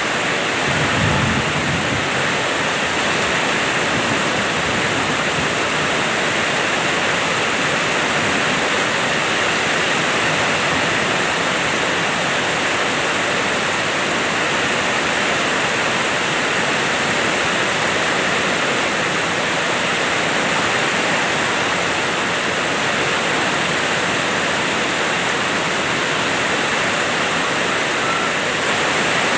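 Heavy rain pouring steadily, an even, unbroken rush of water.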